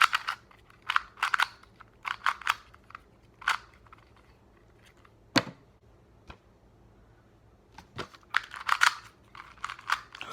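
Hard plastic clicks and clacks in short quick runs, with gaps between them, as a speed cube is turned by hand.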